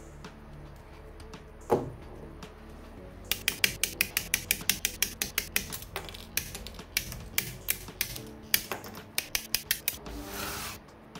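A rapid run of sharp plastic clicks, about four or five a second, from handling and assembling a plastic model kit's parts, over background music; a single click comes before the run and a short hiss follows it near the end.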